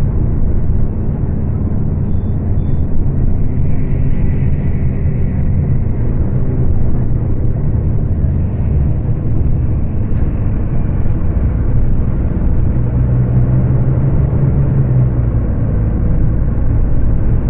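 Scania K250UB city bus diesel engine pulling under way, a steady low drone that swells for a few seconds past the middle. The engine runs at high revs and 'screams' a lot, recorded through a phone microphone.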